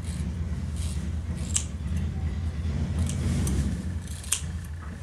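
Scissors snipping through a horse's thick tail hair: a few sharp, separate snips a second or so apart. The scissors are dull and the cutting goes hard through the thick hair.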